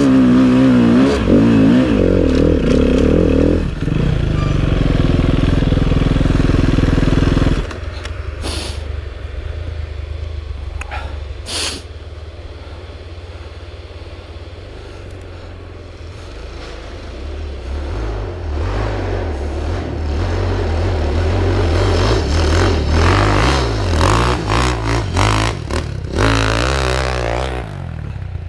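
Enduro dirt bike engine revving hard with a wavering pitch, settling to a steadier run, then cutting off suddenly about seven and a half seconds in. After a quieter stretch with two sharp clicks, a dirt bike engine builds up again and revs repeatedly toward the end.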